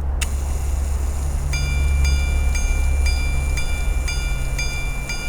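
Minute repeater pocket watch chiming: a click, then a run of evenly spaced gong strikes on one ringing note, about two a second, over a steady low hum.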